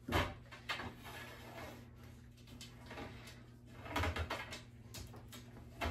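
Light knocks and clatter of a round cake pan and plate being handled on the countertop as a cake is turned out of the pan, with a louder clunk about four seconds in as the pan is set down.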